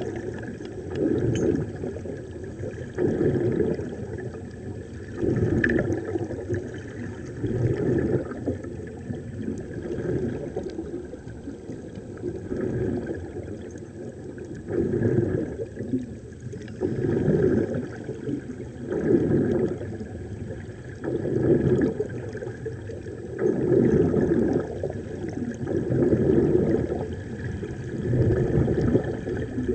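Air bubbling out of an underwater walking helmet, heard underwater as low, gurgling surges that come back about every two seconds.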